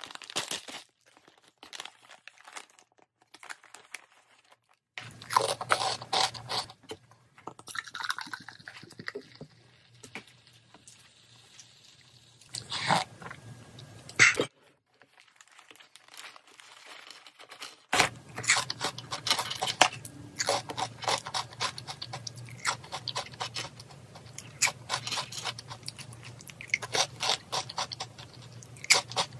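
Crisp fried shrimp-head snacks being crunched and chewed, a dense run of sharp crunches through the second half. Earlier, a foil snack bag crinkles as it is handled and opened.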